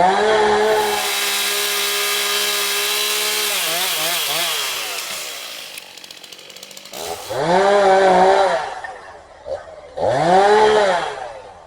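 Chainsaw engine revving up and running at high speed for about four seconds, then its pitch wavers and drops back. Two short rev-ups follow near the end.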